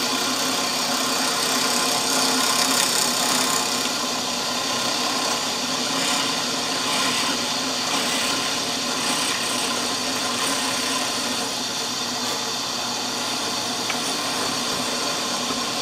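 Drill press running at its highest speed with an end mill cutting a pass along a wooden banjo bridge blank: a steady motor hum with the cutter chewing through the wood.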